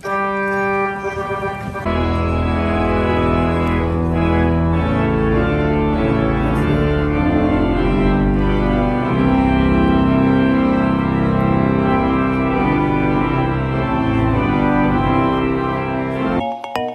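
Organ playing slow processional music in sustained chords, with deep bass notes joining about two seconds in. The music cuts off abruptly just before the end.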